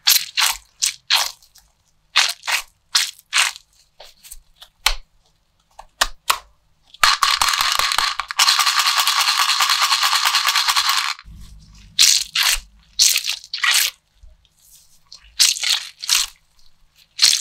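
Squishy toys squeezed in gloved hands: a run of short, crunchy squishes, several a second. About seven seconds in there is a dense, continuous rattling for about four seconds, then the squishes start again.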